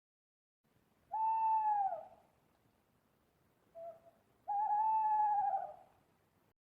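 Owl hooting: two long hoots about three seconds apart, each dipping in pitch at its end, with a short quieter note between them.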